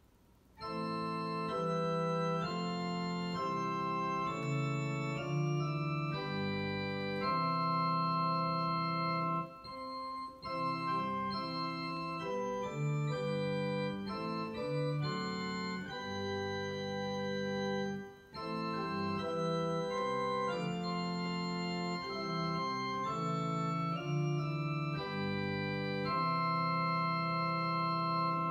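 Upright digital piano played in an organ-like voice: slow, held chords that change every second or two, starting about half a second in.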